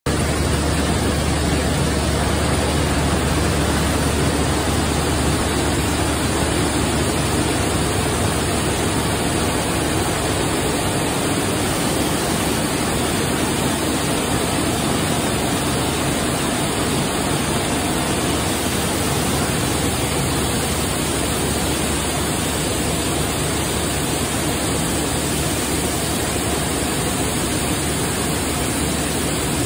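Ring spinning frames running in a woolen mill: a steady, even machine noise from rows of turning spindles and bobbins twisting strands of unspun wool into single-ply yarn. A low hum underneath eases off about eleven seconds in.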